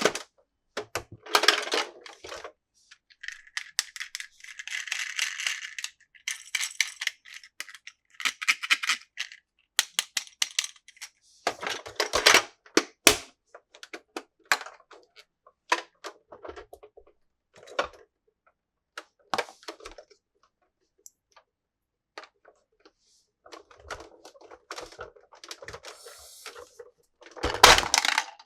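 Plastic toys and their packaging being handled: a string of irregular sharp clicks and knocks, with a stretch of rustling about four to six seconds in and a louder clatter near the end.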